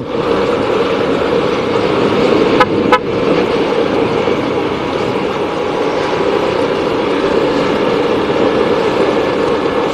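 Steady engine and road noise from a vehicle on the move, with two brief sharp sounds close together between two and three seconds in.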